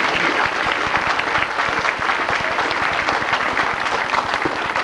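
Audience applauding: many hands clapping steadily in a dense patter.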